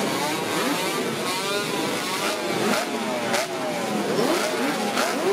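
Several two-stroke four-cylinder motorcycle engines being revved at once, in repeated blips whose pitch rises and falls over and over.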